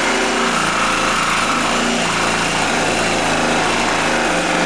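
Yellow cordless reciprocating saw running steadily, its blade cutting through the vanity countertop around the sink.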